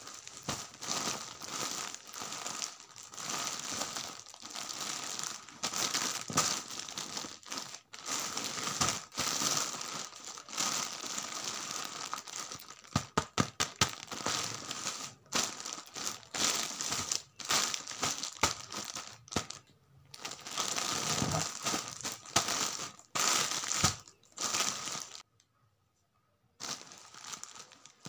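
Plastic mailer bag crinkling and rustling as it is handled and turned over, with a run of sharp crackles midway and a short pause near the end.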